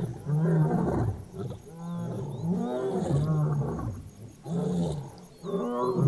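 A lion pride roaring together in chorus: several lions' loud roars overlap in about four waves. It is a territorial chorus that warns other lions away from the pride.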